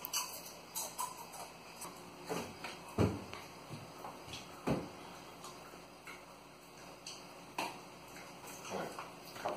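Scattered light knocks, clicks and rustles of kitchen handling, a snack bag and a wall cabinet door, with two louder thumps about three and nearly five seconds in.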